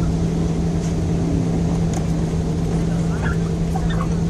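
A vehicle engine running at a steady speed: a constant low hum over a continuous rumble.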